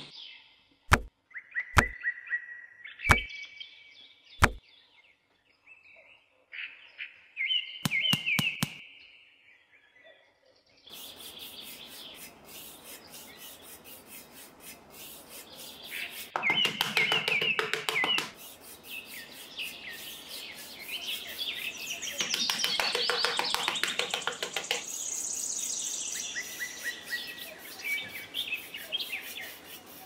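Birds chirping and twittering, with a few sharp taps in the first few seconds. About eleven seconds in, a steady background hiss comes up under a denser chorus of chirps and whistles.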